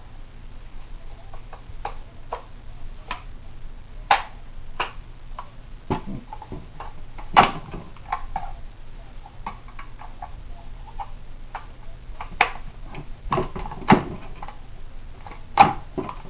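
Irregular clicks and knocks of a Yugo SKS rifle and its aftermarket detachable magazine being handled and fitted, with a few sharper knocks among lighter ticks.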